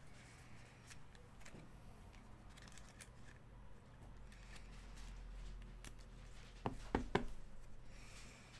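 Faint handling of a trading card and a clear plastic card holder, with a quick cluster of three or four sharp plastic clicks about seven seconds in.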